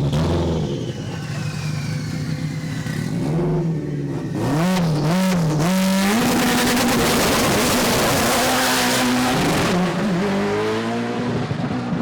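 A drag car's engine blipping its throttle, then held at a steady high rev for about four seconds with a loud hiss over it, then dropping back to throttle blips near the end.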